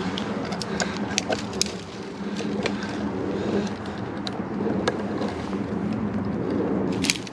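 Twigs snapping and branches brushing and crackling as someone pushes through dense woodland undergrowth, over a steady low drone.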